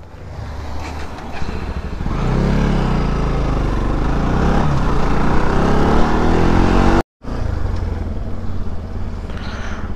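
Motorcycle engine running as the bike pulls away and picks up speed, its note rising, over a broad rush of wind and road noise. The sound cuts out for a moment about seven seconds in, then the engine runs on steadily.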